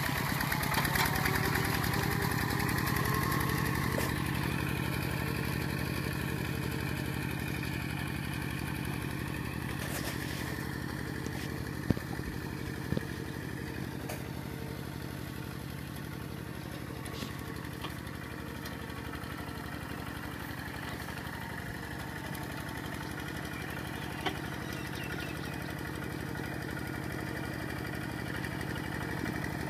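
Single-cylinder diesel engine of a Kubota two-wheel walking tractor running steadily under load as it drags a harrow through wet paddy mud, growing fainter as it moves off and a little louder again near the end. A few sharp clicks partway through.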